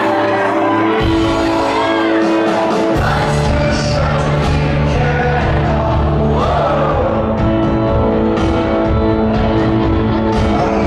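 A rock band playing live, with singing over sustained chords. The low end comes in about a second in and grows much fuller around three seconds in.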